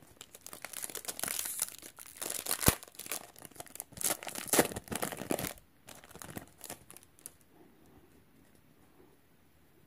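A Magic: The Gathering booster pack's foil wrapper being torn open and crinkled by hand, a dense crackling with one sharp crack just under three seconds in, dying away after about six seconds.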